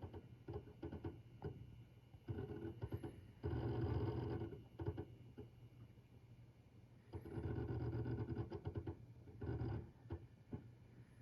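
Toshiba N300 16TB hard drive making its abnormal noise: scattered clicks and two longer bursts of rapid chattering a few seconds apart, over a steady hum.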